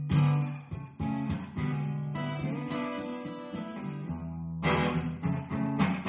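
Acoustic guitar strummed through a slow run of chords, with a louder strum about two-thirds through: the instrumental opening of a song, before the singing comes in.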